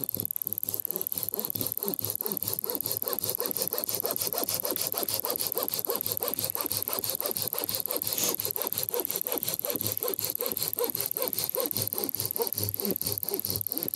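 Silky Gomboy folding hand saw cutting through a dry spruce log, the rasp of its strokes running under a steady fast ticking of about five ticks a second with a thin high tone, an added stopwatch effect that starts and stops with the timed cut.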